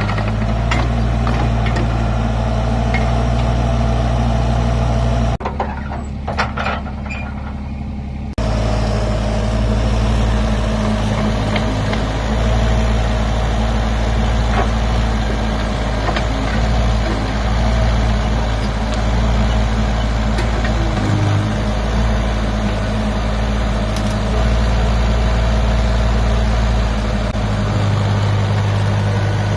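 Mini excavator's engine running steadily. About five seconds in, the sound drops to a quieter stretch for roughly three seconds, then the engine is heard again.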